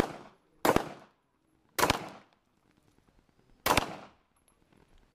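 Four pistol shots at uneven spacing, each a sharp crack with a short echoing tail, from shooters firing an ordered string of three consecutive rounds.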